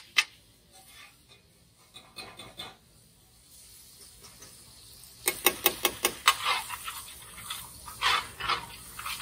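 Metal ladle clacking against a large flat metal tawa (griddle): a quick run of sharp taps about five seconds in, and a few more strokes near eight seconds, after a quiet start.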